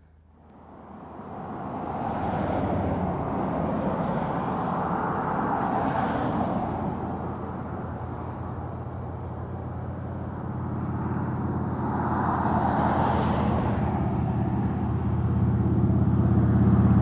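Road traffic: car engine and tyre noise that swells twice as vehicles pass, with a steady low hum, growing louder near the end.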